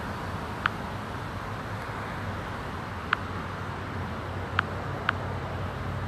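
Outdoor ambience: a steady low hum under a general background hiss, with four short, sharp ticks or chirps at irregular intervals.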